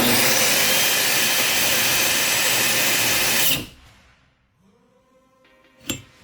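Bosch GWS 18V-10 brushless cordless angle grinder running with its disc working material, a loud, even grinding noise. It stops fairly abruptly about three and a half seconds in, and a sharp click follows near the end.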